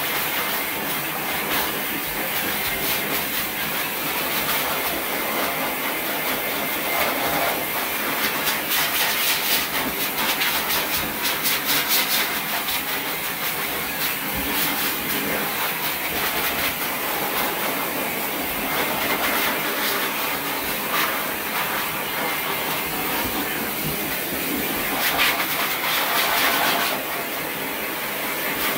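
Hose-type pet blow dryer with a lower-flow nozzle blowing air over a wet dog's coat: a loud, steady rushing hiss that swells now and then.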